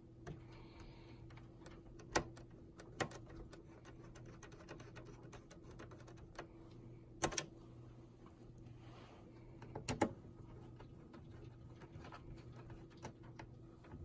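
Scattered clicks and taps of small parts being handled and fitted on a POS terminal under repair. The sharpest snaps come about two seconds in, at three seconds, near seven seconds, and as a quick double click about ten seconds in, all over a faint steady hum.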